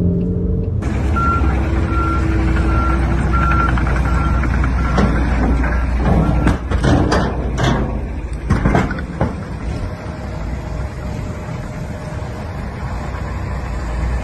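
Heavy truck engine running with a reversing alarm beeping about twice a second, then a run of heavy knocks and thuds as the bust and debris tumble off the tipped dump truck bed onto the landfill ground. The engine keeps running afterwards.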